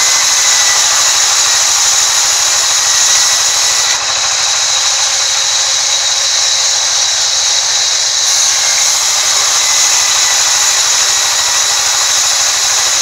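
Sawmill band saw ripping a long timber plank lengthwise, the blade cutting steadily through the wood with a loud, high-pitched whine.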